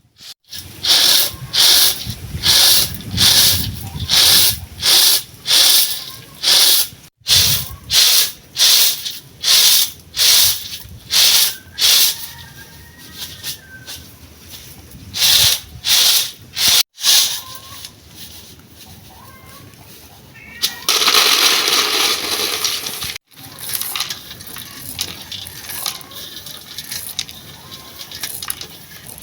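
Groundnuts being winnowed to blow off their loose red skins: a rhythmic rattling swish about twice a second as the nuts are tossed on the tray, then after a pause a longer hissing rush.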